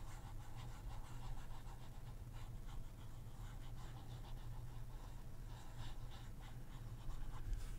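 Faint scratching of a pen stylus stroking across a drawing tablet, many short strokes, over a steady low electrical hum.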